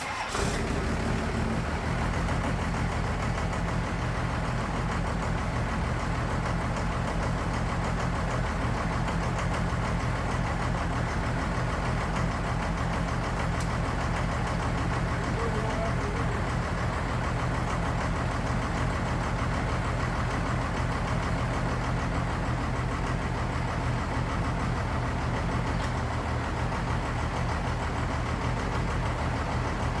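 12-valve Cummins 5.9 L inline-six diesel idling steadily on a newly fitted Bosch VE injection pump. It cuts in suddenly at the start.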